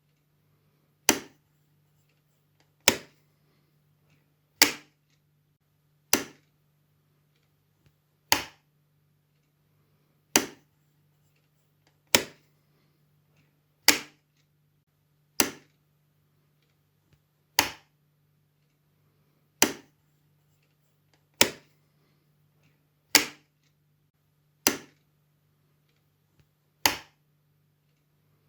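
Light switch clicked on and off again and again: about fifteen sharp single clicks, roughly one every two seconds, each dying away quickly.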